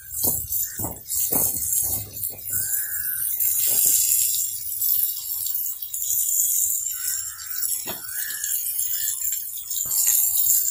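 Thick tomato and onion sauce sizzling and bubbling in a cast-iron pan on a camp stove, with a steady hiss and irregular pops of bursting bubbles. A short high tone recurs at intervals in the background.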